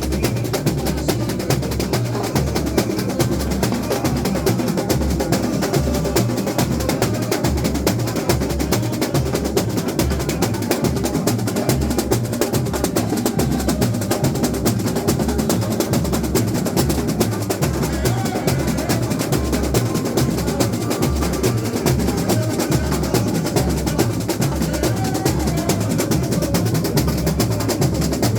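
Samba school bateria playing samba: deep surdo bass drums beat a steady pulse under a dense layer of snare drums and other hand percussion.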